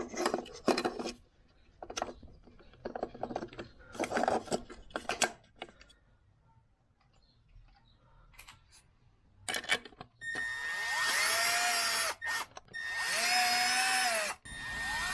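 Cordless drill-driver running in two bursts of about two seconds each, spinning up, holding and winding down, as it drives in the bolts of a clutch slave cylinder. Before that, light clinks and knocks of metal parts and tools.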